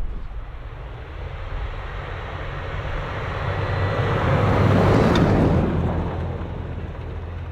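A vehicle passing by: a rushing noise that grows louder to a peak about five seconds in, then fades, over a steady low hum.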